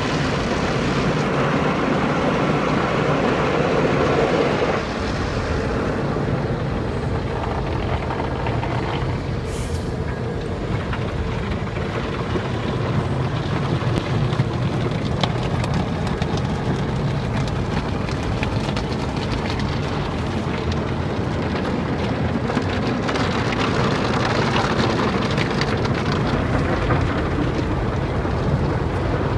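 Car wash running: a steady rush of spraying water and machinery, changing a little about five seconds in.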